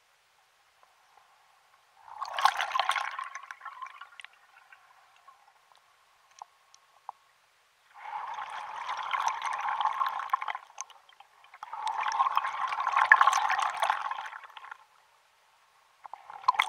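A diver's exhaled gas bubbling up underwater: three long rushes of bubbles, about 2, 8 and 12 seconds in, each lasting two to three seconds, with another starting at the very end.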